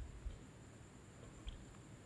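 Quiet mouth sounds of a lemon sandwich biscuit being chewed between bites: faint soft clicks and squishes, a couple about a quarter second in and near the middle of the second.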